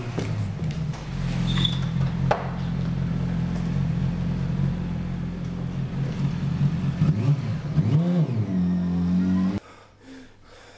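Motorcycle engine running steadily, with its pitch swinging up and down in a couple of revs near the end before the sound cuts off abruptly.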